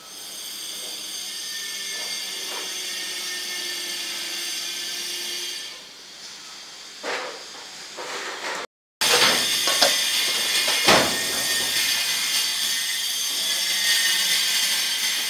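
Steady hiss, with a few short knocks and scrapes of a metal spoon against a stainless steel bowl.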